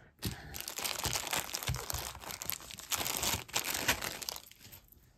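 Packaging crinkling and rustling as a piece of jewelry is unwrapped by hand: a dense run of small crackles that starts just after the beginning and stops about four and a half seconds in.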